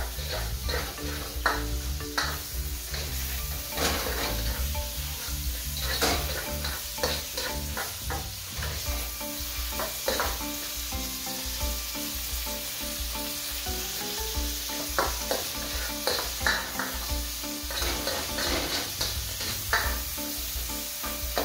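Shrimp and bell peppers sizzling in a hot wok while a spatula stirs and scrapes them, with frequent short clicks and scrapes of the spatula against the pan over a steady frying hiss.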